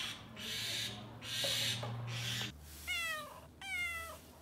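Domestic cats meowing: first a few hoarse, breathy calls, then about three seconds in two clear meows, each falling in pitch.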